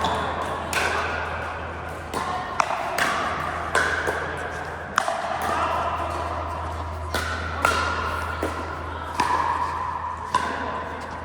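Pickleball paddles hitting a plastic ball: sharp, irregular pops about a second apart, over background voices.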